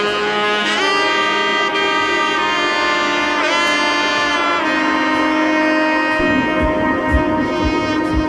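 Background music: a melody of long held notes with a few sliding pitch bends, joined after about six seconds by a steady low drum beat.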